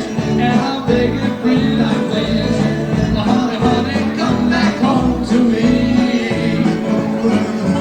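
Live doo-wop band playing a song, with a singing voice over the band.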